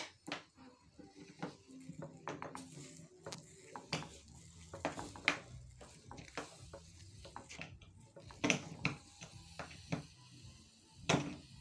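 A wooden cooking stick knocking and scraping against a metal pot as thick, nearly cooked ugali is stirred and pressed, in irregular knocks with the loudest about eight and a half and eleven seconds in.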